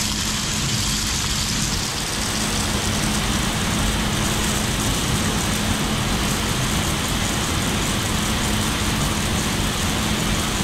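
Grain-handling machinery running steadily at the pit: an even drone with a constant low hum under a wide hiss.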